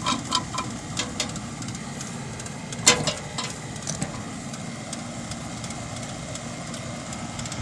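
Steady mechanical running noise with metal tool work over it: a quick run of small ringing metallic clicks at the start, and one sharp metal clank about three seconds in, as a puller is worked on a rust-seized blower pulley.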